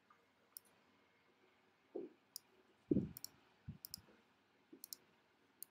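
Computer mouse clicking, about eight short separate clicks spread out with uneven gaps, as anchor points are placed with Illustrator's pen tool. A few soft low thumps come between the clicks, around the middle.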